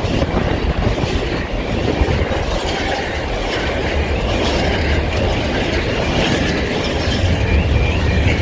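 Steady loud rumbling and rattling noise, with a warbling tone coming in near the end.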